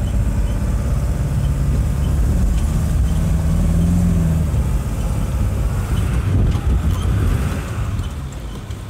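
Pickup truck engine running as the truck is driven, a steady low hum whose note rises briefly about three to four seconds in.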